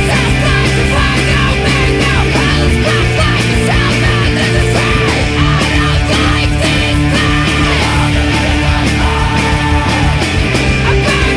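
Post-hardcore rock band playing loud and dense: distorted electric guitars, bass and drums, with a line of short bending notes over the top.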